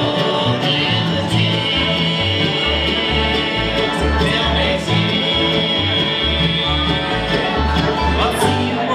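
Live bluegrass band playing an instrumental passage: upright bass plucking steady notes under banjo, mandolin and acoustic guitar.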